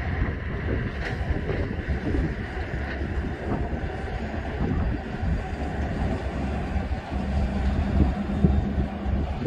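Diesel locomotive of an approaching train, heard as a low rumble, with a steadier engine drone coming in about seven seconds in.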